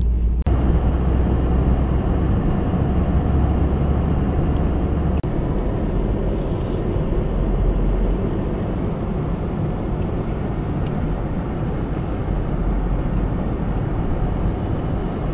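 Car driving along at steady speed: a constant low engine and road rumble heard from inside the cabin.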